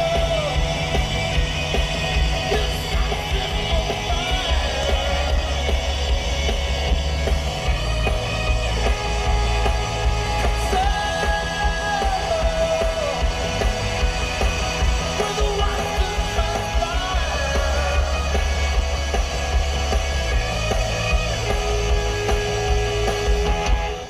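Rock music with singing and heavy bass playing over a car stereo inside the cabin.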